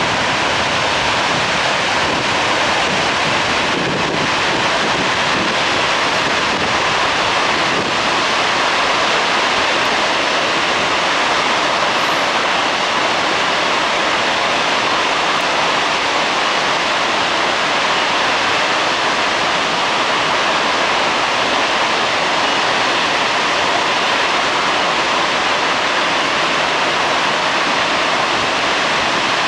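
Floodwater pouring from the Kawaji arch dam's discharge outlets, a loud, steady rush of falling water and spray. The dam is releasing a river swollen by typhoon rains.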